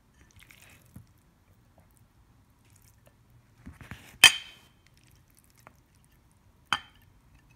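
Ceramic dishes clinking twice, each a sharp clink with a brief ring: the louder one about four seconds in, the other near the end. Between them are faint soft handling sounds as chopped raw beef is scraped from a plate into a bowl.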